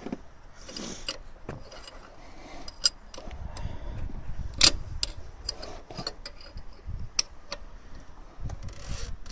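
Irregular light metallic clicks and knocks from a VAZ 2109 engine's piston being pushed and rocked by hand with a screwdriver through the spark-plug hole, a test for play in the connecting rod and piston pin. The loudest click comes about halfway through.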